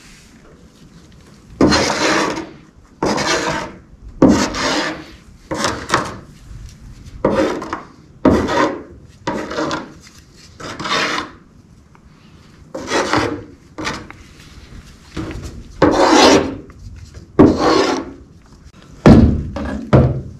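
Wooden stir stick scraping in a dozen or so separate strokes, starting about two seconds in, as it works two-part flotation foam in a plastic mixing cup and over the floor.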